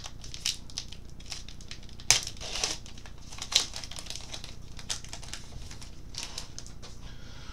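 A 2014 Topps Heritage baseball card pack's wrapper crinkling and crackling as it is torn open and the stack of cards pulled out, with louder crackles about two and three and a half seconds in.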